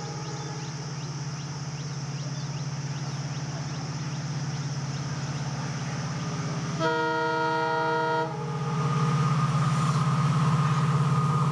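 WDP4D diesel locomotive approaching at speed, its EMD two-stroke engine droning steadily and growing louder near the end. About seven seconds in it sounds its multi-tone horn in one blast of about a second and a half.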